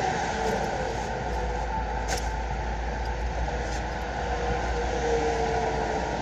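Steady roadside traffic noise: a low rumble and tyre hiss from passing vehicles, with a brief click about two seconds in.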